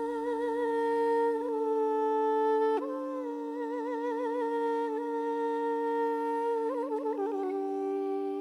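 Two Armenian duduks: one holds a steady drone (the dam) while the other plays a slow, ornamented melody with trills above it. The melody steps up about three seconds in and falls through a quick run near the end.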